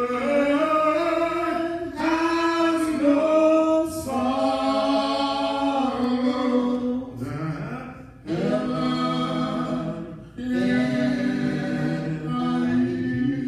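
A small a cappella gospel group of three voices singing together into microphones, with no instruments. Long held notes come in phrases that break off briefly every few seconds.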